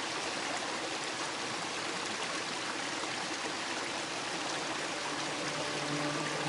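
River water flowing steadily, a constant rushing. Music fades in near the end.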